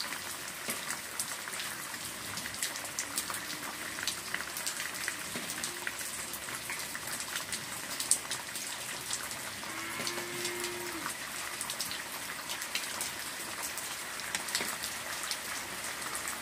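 Steady rain-like hiss with many small scattered ticks, like rain falling, with a brief low tone about ten seconds in.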